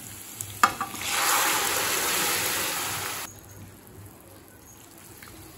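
Boiled vegetables with their cooking water tipped into a kadai of hot oil and fried onions: a sharp click, then a loud watery hiss and sizzle for about two seconds that stops abruptly, leaving only a faint low hum.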